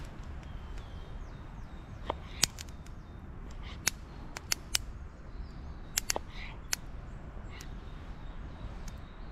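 About ten sharp, irregularly spaced taps and clicks of a Peltonen Ranger Puukko M07 knife slicing meat against a wooden cutting board. A few short bird calls sound faintly in the background.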